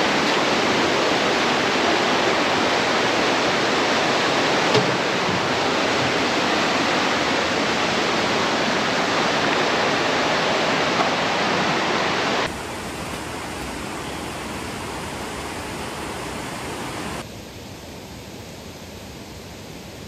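Steady rushing hiss of water. It drops abruptly in level twice, about twelve seconds in and again about five seconds later.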